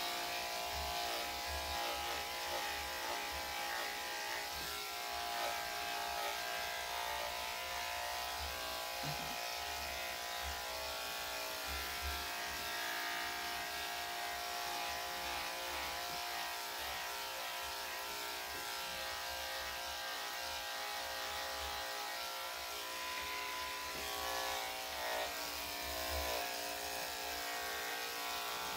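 Electric dog grooming clippers fitted with a #7 skip-tooth blade running with a steady buzz as they are run through a spaniel's coat.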